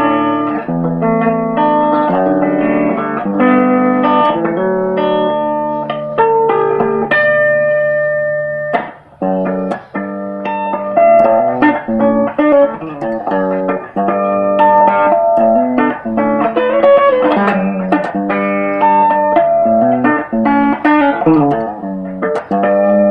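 Guitar music: a plucked melody over chords, with a short break about nine seconds in.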